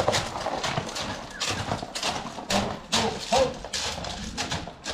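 Horse hooves clattering on hard ground as a stallion runs about, an irregular string of sharp knocks several times a second.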